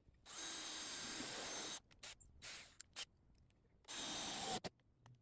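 Hissing spray in two long bursts, the first about a second and a half long and the second shorter near the end, with a few brief spurts between them.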